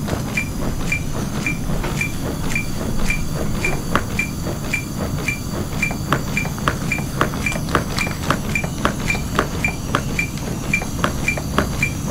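A defibrillator's CPR metronome beeping steadily, about two short high beeps a second, setting the pace for chest compressions. Under it, sharp irregular clicks from compressions on a CPR training manikin and a steady low rumble.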